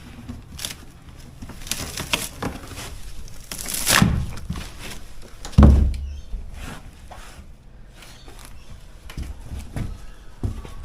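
Irregular knocks and clunks of handling and moving about, with one heavy low thump about five and a half seconds in.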